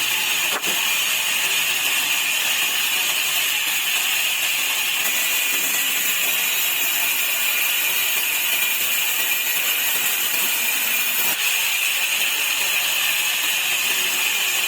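Sawmill saw running while cutting wood into slats: a loud, continuous high-pitched rushing sound at a constant level.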